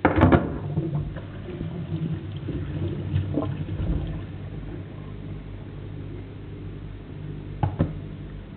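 Kitchen mixer tap turned on, with water running and splashing into a stainless steel sink as hands rinse under the stream. There are two quick knocks near the end.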